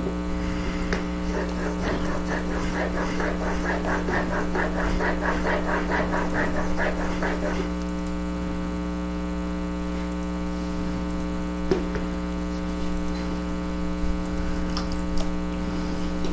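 Chisel in a honing jig rubbed back and forth on a fine 4000-grit water stone, quick even scraping strokes about three a second, stopping about halfway through. A steady electrical hum runs underneath throughout.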